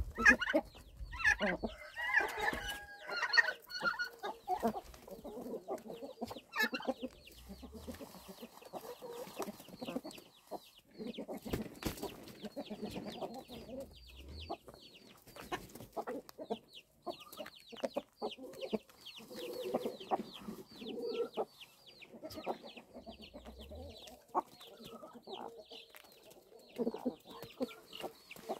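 A flock of chickens clucking steadily while they forage, with a few louder calls in the first few seconds. Quick high chirps repeat through the rest of the time.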